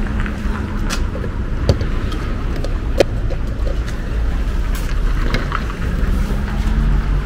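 Steady low rumble of a running vehicle, with a few sharp clicks, the sharpest about three seconds in.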